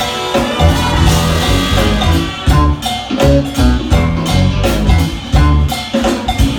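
A jazz-fusion band with a horn section playing live: a heavy bass line and drum kit drive a busy groove, with melodic parts above.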